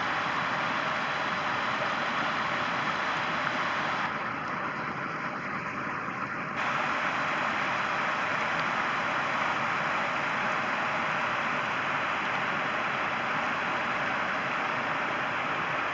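Creek water rushing over rocks, a steady hiss. It dips a little in level about four seconds in and returns a couple of seconds later.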